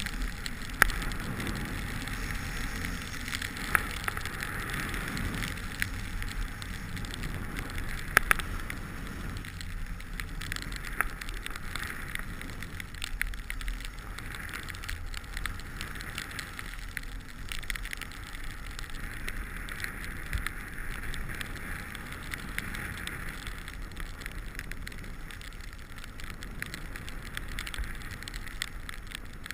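Skis hissing and scraping over snow through a series of turns, the hiss swelling and fading every few seconds, with a low rumble and a few sharp clicks in the first eight seconds or so.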